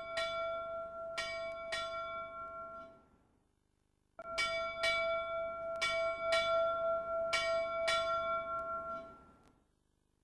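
Church bell ringing, struck again and again so that each stroke rings on into the next. It stops for about a second partway through, then rings again several more times and dies away near the end.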